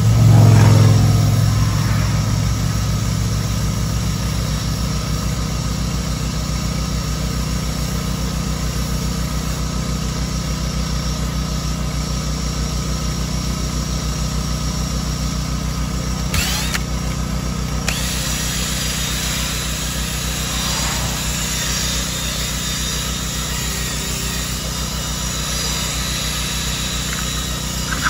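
Steady hum of a running motor or engine, loudest in its first couple of seconds and then even.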